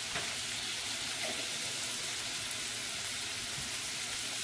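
Steady sizzle of food frying in a pan on the stove.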